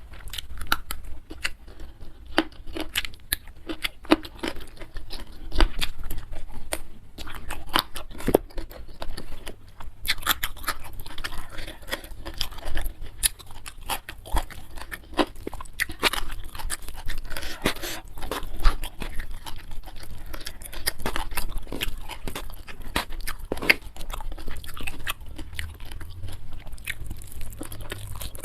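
Close-miked chewing and crunching of food: many irregular crisp crunches and wet mouth sounds.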